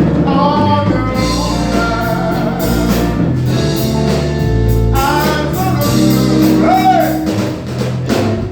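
Music: a song with a singer's voice over a bass line and a steady beat.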